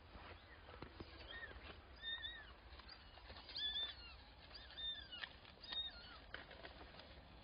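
Newborn kittens mewing: about six short, thin, high-pitched calls, each rising and falling, spread over several seconds, with a few faint rustling ticks between them.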